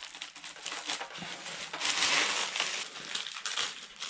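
Clear plastic packaging wrap crinkling and crackling as hands pull it off a figurine, loudest about two seconds in.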